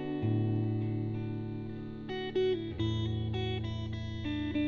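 Background music: a plucked acoustic guitar playing a slow melody over held low notes.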